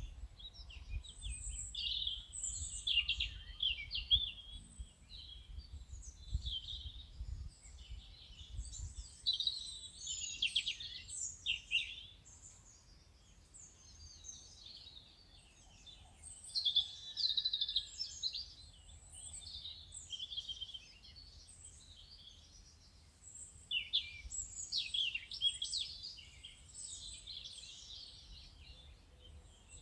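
Songbirds chirping and singing in dense, overlapping high phrases, with a couple of short lulls. A faint low rumble sits under the first third.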